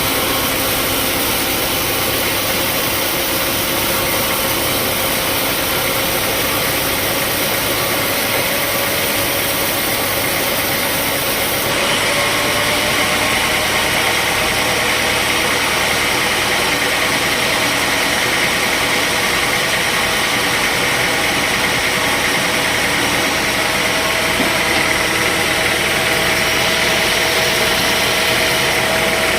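Sawmill machinery running steadily, with a thin whine that slowly rises in pitch. The sound changes abruptly about twelve seconds in.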